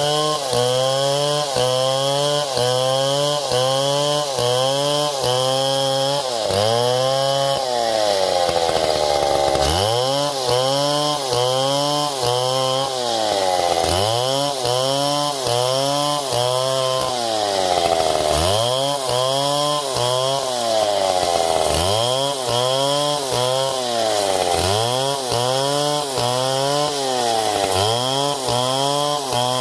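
Chainsaw engine running hard, its pitch swooping up and down about once a second, with a few longer dips.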